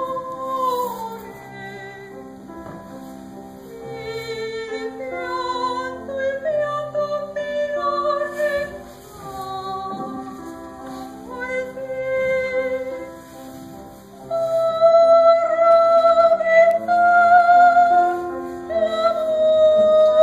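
Soprano singing an operatic aria to piano accompaniment, in long held notes with vibrato. From about fourteen seconds in she sings louder, sustained high notes.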